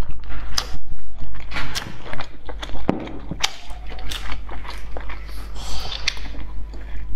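Close-miked chewing of boiled egg: wet mouth clicks and smacks coming irregularly, over a steady low hum.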